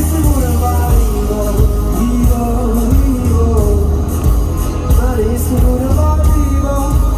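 Live pop-rock band music: a singer carries a melody over heavy, steady bass and drums.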